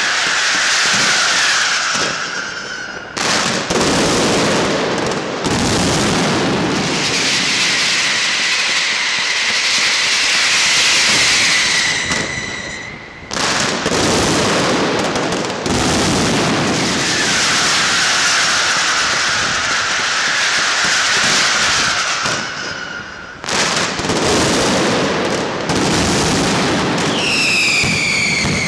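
Mascletà: a dense, nonstop barrage of firecrackers and aerial bangers going off, with shrill whistling fireworks held over it. The din eases briefly three times, about every ten seconds, and near the end the whistles fall in pitch.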